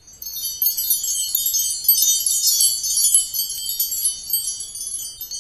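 Wind chimes tinkling in a dense shimmer of many short, bright, high tones, starting a moment in and beginning to fade near the end.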